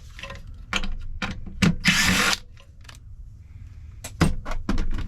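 A power drill runs in one short burst of about half a second, likely backing out a screw on the light fixture's metal housing, with sharp clicks and knocks of metal parts being handled before and after it.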